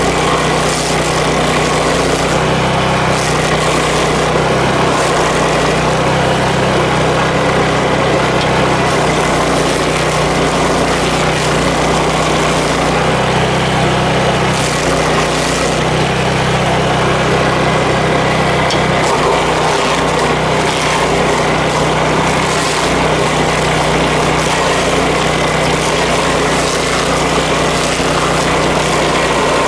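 Power King stump grinder running while grinding an ash stump, its engine note changing every few seconds as the load on the cutter shifts.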